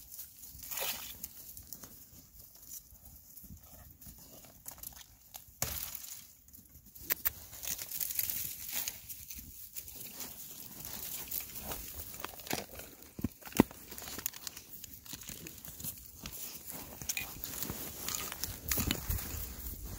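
Crunching and rustling of someone walking over frost-stiff grass and pushing through dry brush stems, an uneven run of small crackles, with one sharp crack about two-thirds of the way in.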